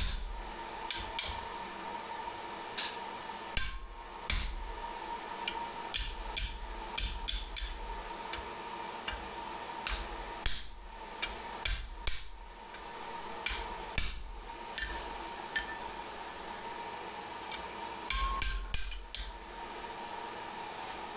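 Blacksmith's hand hammer striking steel flat bar on an anvil while forging: irregular blows in short clusters with pauses between them.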